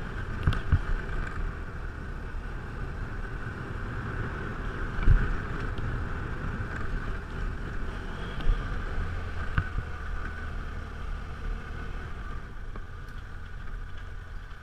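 BMW motorcycle riding along a dirt road, its engine running steadily under wind noise on the helmet-mounted microphone, with a few short knocks from bumps, the loudest about five seconds in.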